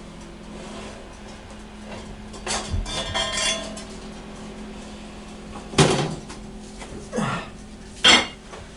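Lid of a hot cast-iron pot being taken off inside a countertop oven and handled: a ringing metallic scrape about three seconds in, then three sharp metal clanks in the second half as the lid and oven are handled. A low steady hum runs underneath.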